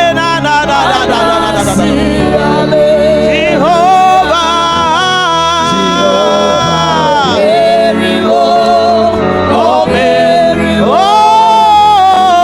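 Gospel-style singing over musical accompaniment: a voice holds long, wavering notes that slide up and down between phrases.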